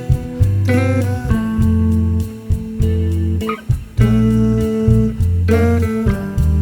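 Music: plucked guitar notes over a deep, steady bass line, the notes changing every half second or so.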